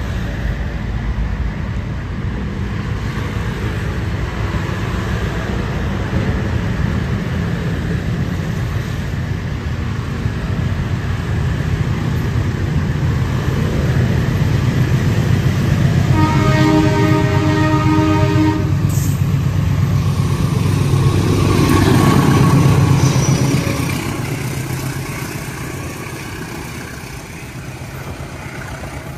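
Diesel locomotive at the head of a passenger train approaching and passing close by: its engine rumble builds steadily, the horn sounds once for about two and a half seconds just past halfway, and the engine is loudest as it passes about three quarters of the way through, after which the coaches roll by.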